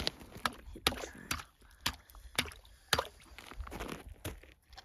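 Water sloshing in an ice-fishing hole as a tip-up line is pulled up by hand, with irregular sharp clicks and crunches from hands and boots on the icy snow.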